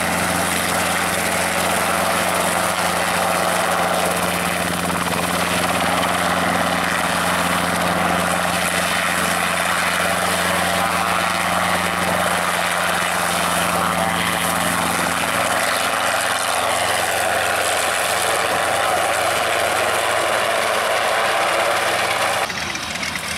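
Small two-seat piston helicopter (Robinson R22) with its engine and rotor blades running at power as it lifts off and flies past, a steady engine hum under a loud rotor and air noise. The sound drops away abruptly just before the end.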